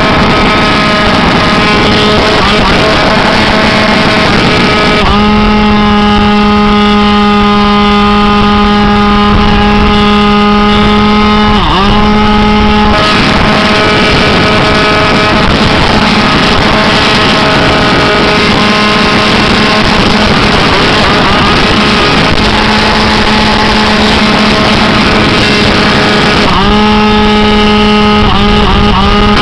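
T-Hawk RC plane's motor and propeller running at a steady high pitch, heard up close from a camera strapped to the fuselage. The pitch dips and recovers briefly about 12 seconds in, and several times near the end as the throttle changes.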